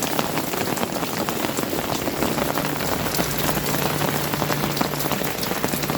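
Steady rain falling, a dense patter of individual drops.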